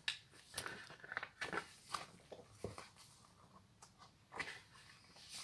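Paper pages of a handmade junk journal being turned and handled: faint, irregular rustles and soft brushing strokes of paper under the fingers.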